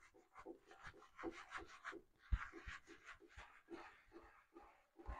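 Gloved hands scrubbing a thick shampoo lather into wet hair: faint, quick squishing rubs, about four a second.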